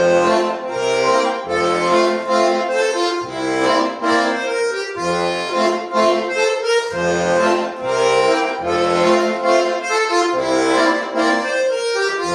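Solo accordion playing a polka: a melody line over short, separate low bass notes.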